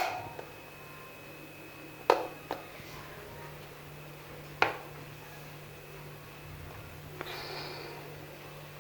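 A few sharp clicks and knocks, about three, spaced a couple of seconds apart, as a small plastic motion-sensor light is handled and fixed to its magnetic mount. A faint rustle comes near the end, and a steady low hum sits under it all.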